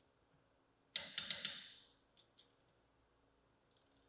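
Click-type torque wrench on a lug nut: a quick cluster of sharp metallic clicks about a second in as it reaches the set torque, then a few fainter clicks.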